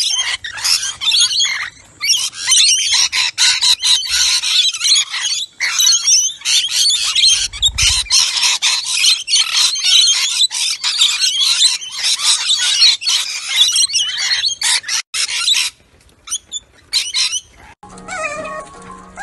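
A flock of rainbow lorikeets chattering and squawking continuously and densely. The chatter thins out and stops a few seconds before the end, where a different, lower-pitched sound begins.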